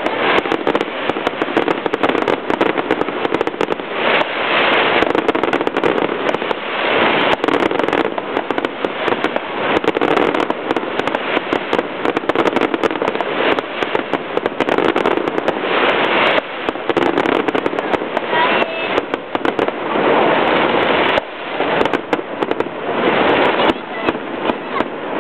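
Fireworks display: a dense, unbroken run of bangs and crackling bursts.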